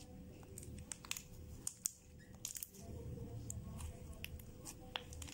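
Thick purple slime being kneaded and squeezed by hand, giving irregular small pops, clicks and sticky squelches.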